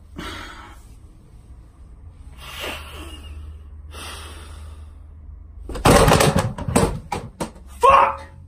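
A quick flurry of loud bangs and knocks, several within about a second and a half, starting about six seconds in, over a low steady hum; a short vocal cry follows near the end.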